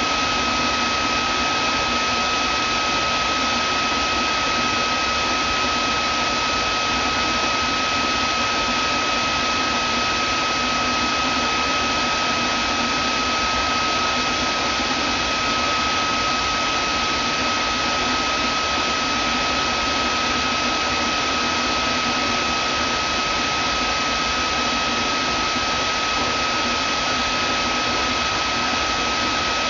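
Vacuum cleaner running steadily: an even rushing hiss with a constant high whine through it.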